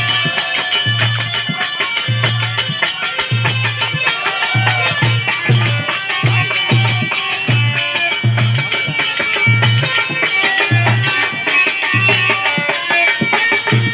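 Instrumental break in a Rajasthani folk bhajan. A drum beats a steady low rhythm while small brass hand cymbals (manjira) clash quickly and continuously over it.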